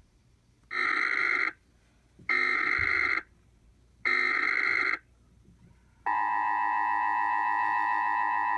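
Emergency Alert System opening: three short electronic data bursts about a second apart (the SAME header), then, about six seconds in, the steady two-tone EAS attention signal starts and holds.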